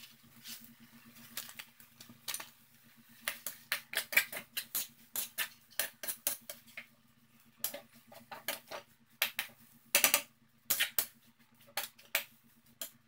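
Metal spatula scraping and clinking against a metal frying pan as sautéed cabbage and meatloaf are stirred, in quick irregular strokes that are busiest about ten seconds in.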